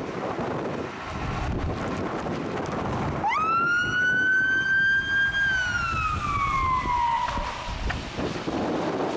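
Scania fire engine's siren sounding one long wail: it rises sharply about three seconds in, holds, then slides down in pitch and cuts off. The truck's engine rumbles underneath as it pulls away.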